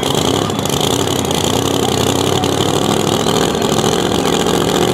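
Super modified two-wheel-drive pulling truck's engine idling steadily after finishing its pull, the truck stopped in front of the sled.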